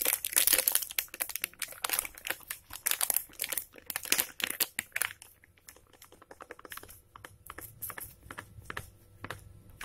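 Plastic flour bag crinkling and crackling as it is tipped and shaken to pour flour out onto a plate. The crackles come thick and fast for about five seconds, then turn sparse and fainter.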